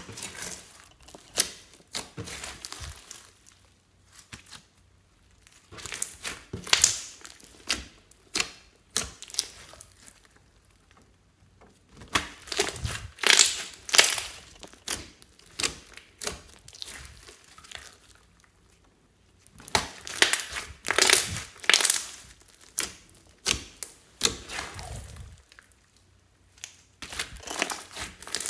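Hands kneading and squeezing a large slime packed with foam beads, giving bursts of crunchy crackling and popping, with a few short pauses between the bursts.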